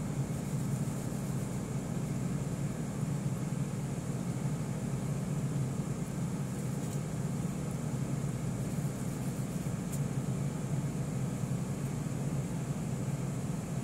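Steady low mechanical hum that stays the same throughout, with no distinct sounds over it.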